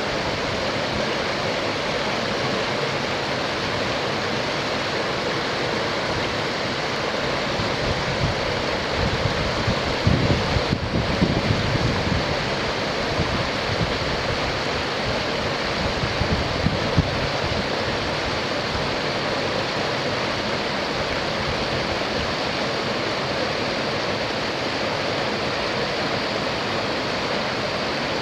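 Mountain river rushing steadily through a whitewater cascade between boulders. A few low bumps come through about ten seconds in and again a few seconds later.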